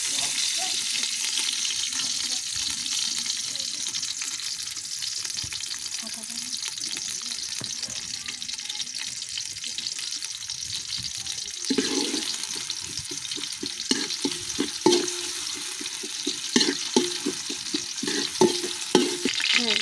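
Sliced onions sizzling in hot oil in an aluminium pot, a steady high hiss. From a little past halfway, a metal spoon stirs them, scraping and knocking irregularly against the pot.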